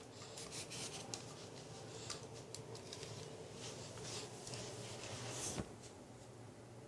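Handling noise from a budget tripod and its packaging being unboxed: rubbing and scraping with scattered small clicks, and a sharper click about five and a half seconds in.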